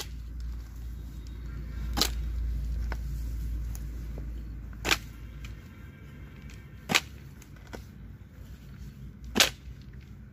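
A hoe's metal blade chopping into the soil around a shrub's roots as it is dug up: five sharp strikes, about two to two and a half seconds apart.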